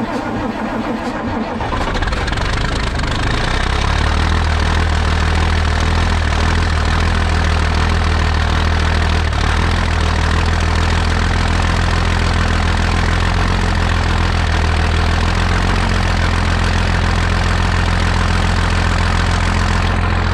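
A heavy vehicle engine catches about two seconds in and settles into a loud, steady idle.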